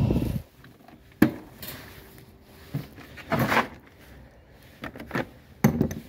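A series of separate knocks and clunks, about half a dozen, from engine parts and tools being handled and set down.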